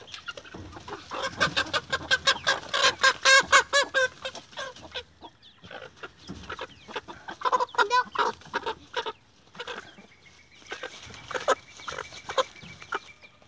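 A hen squawking in rapid runs of loud calls, several a second, in three bouts, the first and loudest about a second in: the alarm calls of a chicken being grabbed and picked up.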